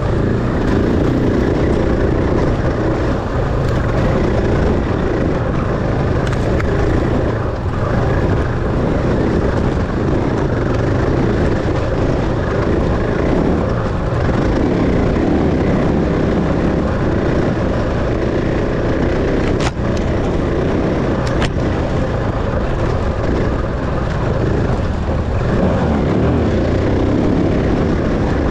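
Enduro dirt bike engine running continuously under load. Two sharp knocks come a little past the middle.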